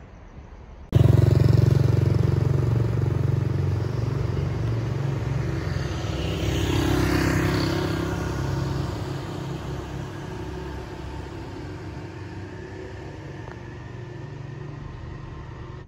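Deep engine rumble of a heavy vehicle going by. It starts abruptly about a second in, swells briefly midway and then slowly fades.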